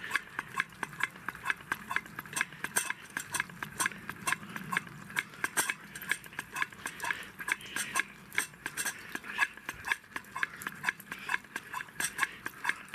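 Hand air pump of an LSO 618/619 gasoline camping stove being stroked quickly and evenly, each stroke giving a sharp click, several a second: the fuel tank is being pressurized before lighting.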